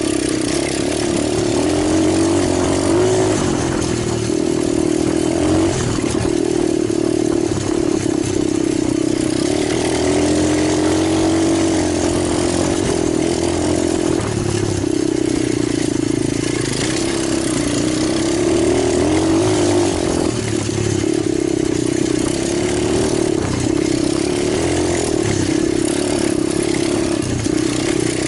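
Italjet 125cc pit bike engine running, its pitch rising and falling every few seconds.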